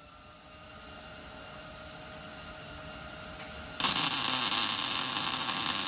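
An electric welding arc tack-welding the steel square: it strikes about four seconds in with a sudden, loud, even crackling hiss, burns for about two seconds and cuts off at the end. Before it there is only a faint steady hum.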